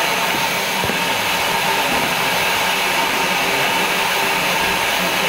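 BR Standard Class 2 steam locomotive standing at rest, with steam hissing out steadily from beneath it.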